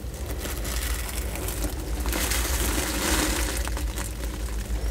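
A sulcata tortoise biting and chewing soft papaya: wet, crackly crunching with many small clicks, thickest a couple of seconds in. A steady low hum runs underneath.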